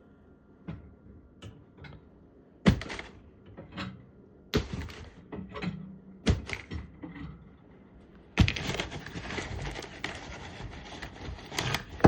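Metal pipe fittings being handled: a series of separate knocks and clinks, then about eight and a half seconds in a steady scuffing, rustling noise with clicks through it, as the fittings are wiped and dried.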